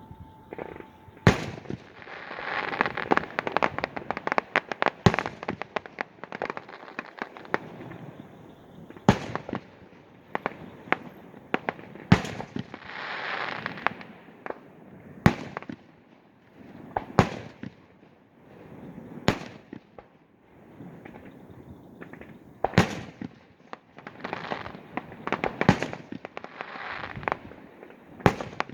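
Fireworks display: about ten loud aerial shell bursts, a second or several apart, with swells of crackling and hissing between them.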